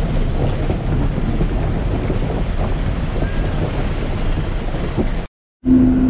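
An off-road jeep fording a shallow rocky river: water rushing and splashing at the wheels under the engine's noise. Near the end the sound cuts out for a moment and gives way to a steady low engine hum inside a bus.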